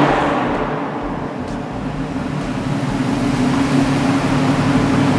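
Volkswagen Golf R32 Mk5's 3.2-litre VR6 engine heard at the exhaust, the note falling away from a rev in the first second and settling into a steady idle.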